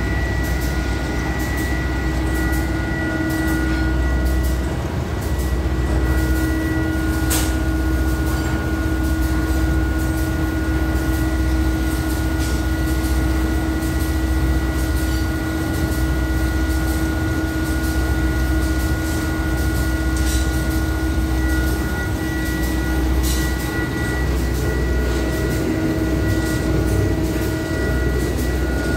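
Ribbon blender (powder mixer) running empty on its electric motor drive: a steady hum with a few constant whining tones over a low rumble, and a single click about seven seconds in.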